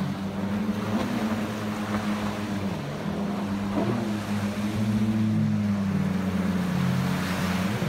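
Several jet ski engines running at speed, their pitch rising and falling as the riders turn and throttle, overlapping one another over the hiss of spray and small surf breaking on the beach.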